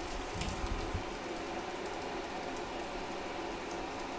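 Hot pan food sizzling steadily with a fine crackle, with a dull low knock of tongs and skillet being handled about half a second in.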